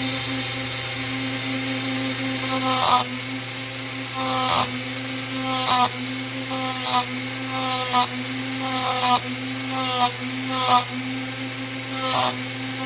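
A small power tool running steadily, with short cutting passes against the cast teeth of a motorcycle kick-start spur gear about once a second, reshaping the rounded tooth edges.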